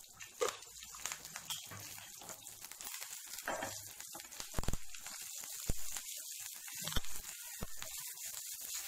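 Oil sizzling steadily in a pan as a tempering of dried red chillies, green chillies, curry leaves and whole spices fries, with a few sharp pops. Near the end a wooden spatula stirs it.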